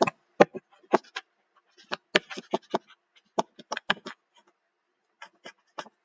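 Stylus writing on a touchscreen: a string of short, irregular taps and scratchy strokes as words are handwritten. There is a pause a little before the end, then a few more strokes.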